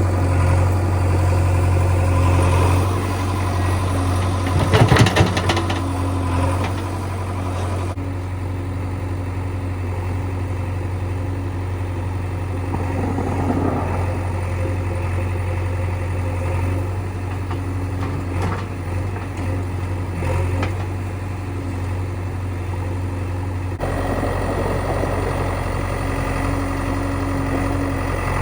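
Heavy diesel engine running steadily with a low hum, from the backhoe loader and tractor at work. A short clatter of knocks about five seconds in is the loudest sound.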